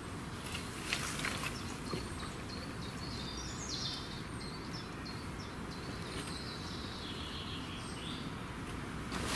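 Woodland birds singing over a steady outdoor hiss: short high chirps throughout and a brighter trilled phrase about three to four seconds in. A couple of faint knocks come about one and two seconds in.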